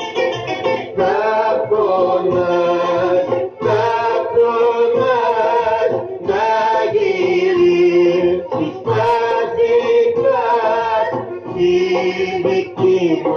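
Greek song playing from a 7-inch vinyl single on a turntable: a solo voice sings long, wavering phrases over instrumental backing.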